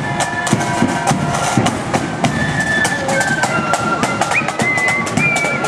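Marching flute band playing: a high flute melody over rapid snare drum strokes and bass drum beats.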